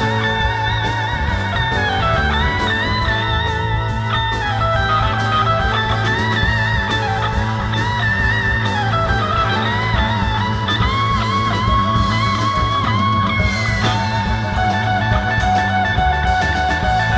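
Live rock band: an electric guitar plays a lead solo, its notes bending and wavering with vibrato, over bass guitar and drums.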